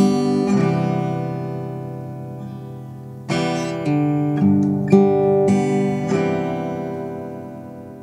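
Acoustic guitar music: a handful of strummed chords, the last left ringing and fading out slowly.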